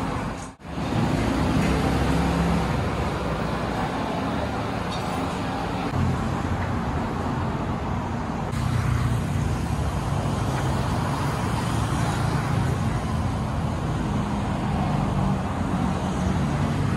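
Steady road-traffic noise from passing cars, a low rumble under a broad hiss, with a brief gap in the sound about half a second in.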